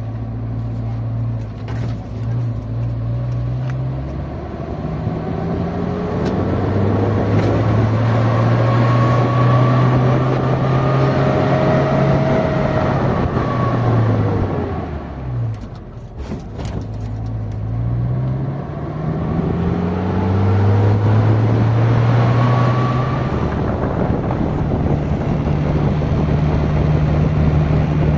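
A motor vehicle's engine running under load, its pitch climbing several times, falling sharply about halfway through, then climbing again.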